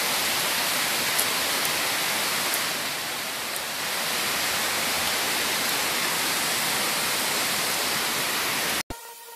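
Steady hissing noise with a few faint ticks, cutting off suddenly near the end.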